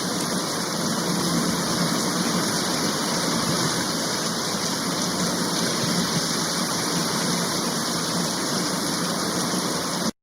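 Steady rushing-water sound effect, like heavy rain or a waterfall, that starts suddenly and cuts off abruptly near the end.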